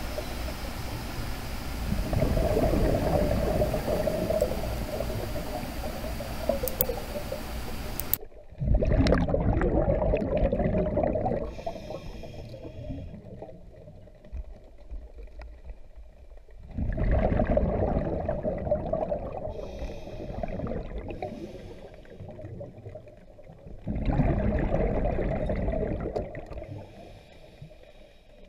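A scuba diver breathing through a regulator underwater, heard through a GoPro housing. Exhaled bubbles gurgle out in loud swells about every six to seven seconds, with quieter hissing inhalations between.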